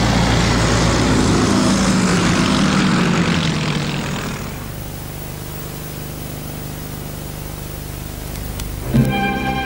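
Propeller fighter planes passing low, their piston engines loud for about four seconds and then dying away to a quieter steady drone. Music starts near the end.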